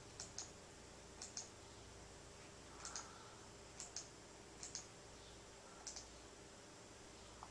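Faint computer mouse button clicks: about seven, most of them quick pairs, coming roughly once a second over a low steady hiss.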